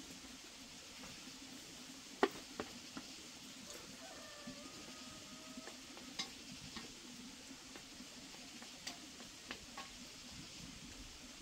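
Greens sizzling faintly in a wok over a wood fire, with chopsticks clicking and scraping against the pan as they are stirred; a sharp clink about two seconds in.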